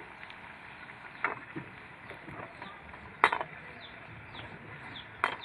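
Pakoras deep-frying in hot oil in a karahi, a steady sizzle, with a metal slotted skimmer clinking against the pan three times, the loudest a little past three seconds in.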